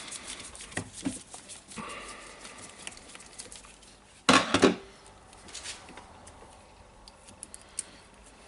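Small parts and hand tools being handled on a workbench: scattered light clicks and taps, a brief rub about two seconds in, and a louder rattling clatter about four seconds in.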